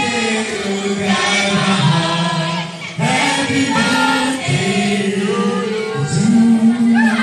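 Music with voices singing together in long held notes.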